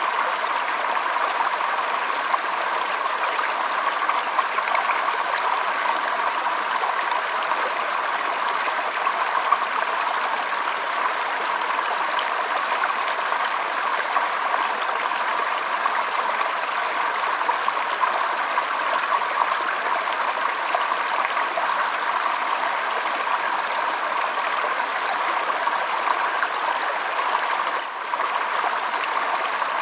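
Stream water flowing steadily in an even, continuous rush, with a brief dip in level near the end.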